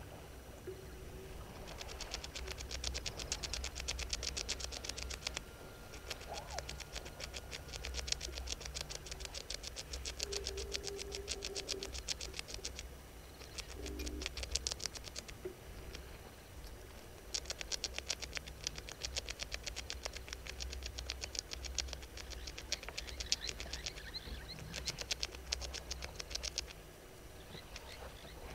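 Rapid, high-pitched clicking that comes in repeated bouts of a few seconds each, like an insect calling, over a steady low rumble.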